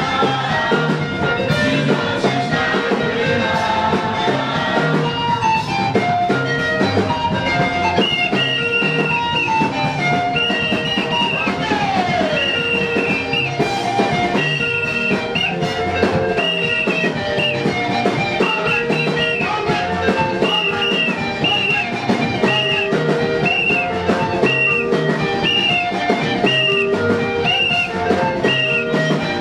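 Church dance music with guitar and drums. From about eight seconds in, a short high note repeats about once a second over the beat.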